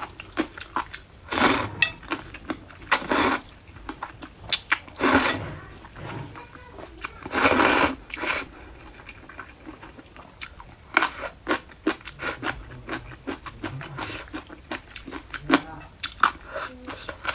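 Someone biting and chewing crisp pickled mustard tuber hearts (zhacai): a string of short crunches with small wet clicks of chewing in between.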